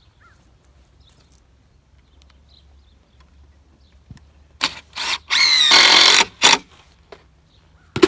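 Cordless drill driving a 3-inch screw into rough-sawn pine 2x6 boards: two short bursts about four and a half seconds in, then a run of about a second with a rising whine, and one last short burst.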